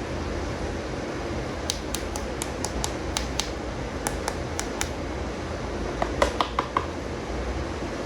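Small hard plastic animal toys being handled, clicking and tapping: about a dozen light clicks, then a quick run of five or six louder taps near the end, over a steady hiss.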